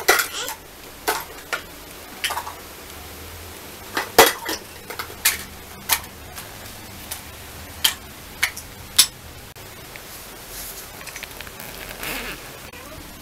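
Clatter of plastic toy dishes and utensils: about a dozen sharp clicks and clinks at uneven intervals, the loudest about four seconds in.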